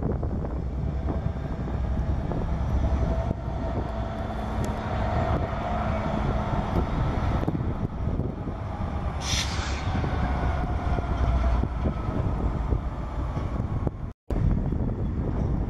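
Diesel locomotive's engine running as it slowly pulls a train of covered hopper and tank cars, with a steady low rumble from the engine and wheels. A brief sharp hiss sounds about nine seconds in, and the sound cuts out for a moment near the end.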